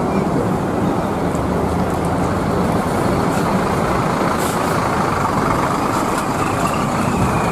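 Intercity coach bus's diesel engine running close by as the bus pulls slowly past, a steady heavy rumble.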